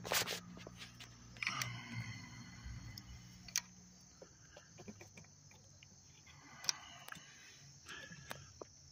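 Handling noise from a hand-held phone: a loud rub and click right at the start, then sporadic light clicks and rustles, with a few sharper clicks seconds apart.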